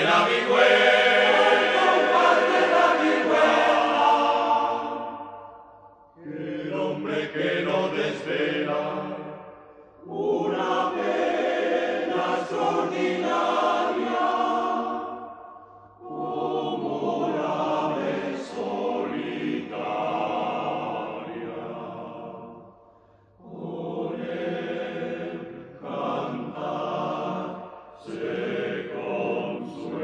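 Choir singing in long held phrases of a few seconds each, with short breaks between them, in a chant-like style.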